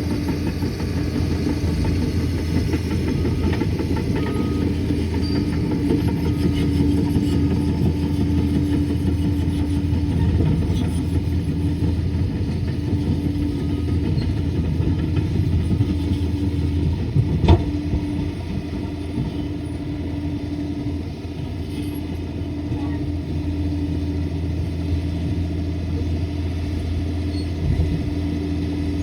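Liebherr 746 crawler dozer's diesel engine running steadily, with a single sharp impact a little past halfway through.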